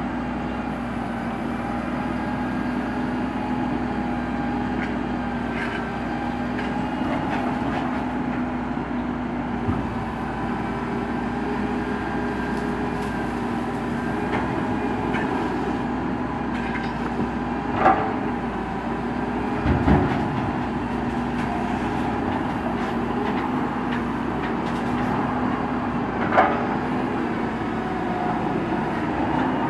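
Builtrite 88-TM truck-mounted grapple loader working: a steady hum of the truck engine and hydraulic pump as the boom and grapple move. A few sharp knocks and a low thud come about two-thirds through, with another knock near the end.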